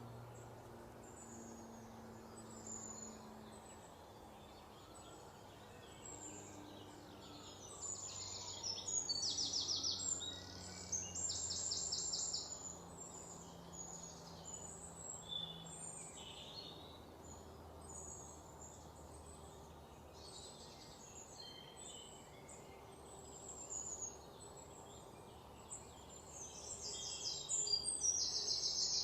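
Pet parrots chirping and calling, with bursts of fast rattling trills about eight seconds in and again near the end, over a faint low hum.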